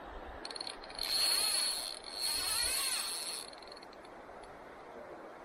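Fly reel's click-and-pawl ratchet buzzing in two bursts of about a second each as the spool spins, its pitch rising and falling with the spool's speed.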